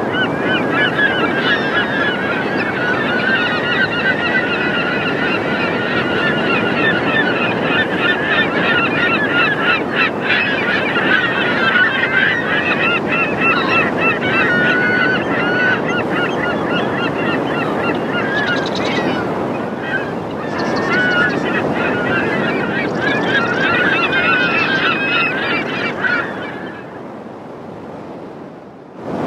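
A large flock of birds calling, many short calls overlapping over a steady rushing noise, fading out near the end.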